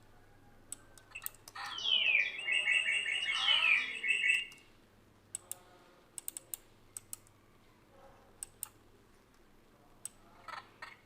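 A bird-call sound effect played back for about three seconds, starting near two seconds in, made of quick sweeping chirps, with a short weaker burst near the end. Computer mouse clicks and keyboard taps are scattered around it.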